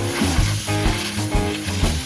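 Background music with a pulsing bass line and a steady beat, over a steady high hiss.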